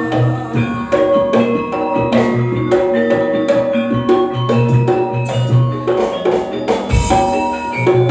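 Campursari band playing an instrumental passage: a steady drum beat under struck melodic notes and a held bass line.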